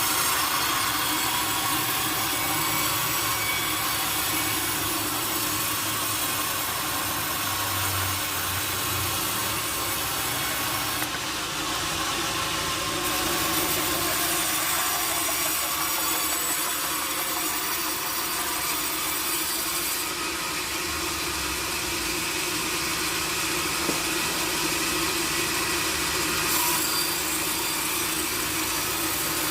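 Sawmill saw running steadily through teak wood, a continuous sawing noise.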